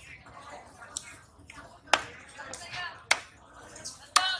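Large fish-cutting knife chopping through red snapper pieces onto a wooden log chopping block: three sharp strikes about a second apart.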